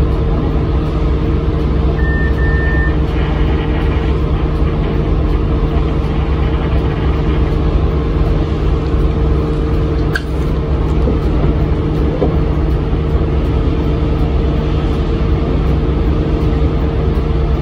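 Inside an Isuzu Erga city bus, its diesel engine running steadily with road rumble. A short high beep sounds about two seconds in and a sharp click about ten seconds in.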